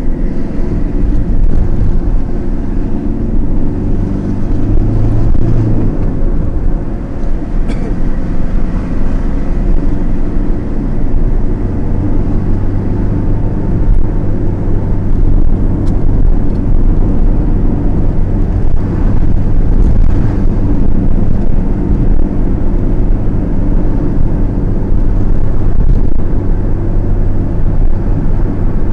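Car engine and road noise heard from inside the cabin while driving: a steady low drone whose engine note shifts a few times as the speed changes.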